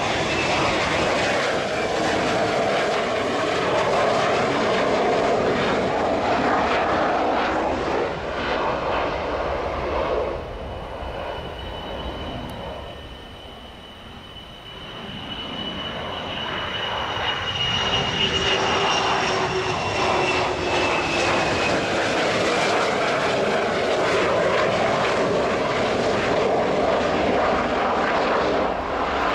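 Twin-jet F-4 Phantom II fighters taking off: loud jet engine noise from their J79 turbojets. It fades about halfway through to a distant, slowly falling high whine, then swells again as the next Phantom rolls down the runway.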